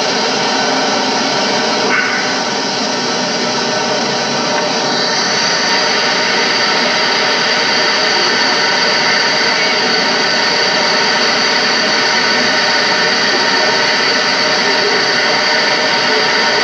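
Large multi-jet fountain spraying, a loud steady rush of falling water with a faint steady hum beneath it.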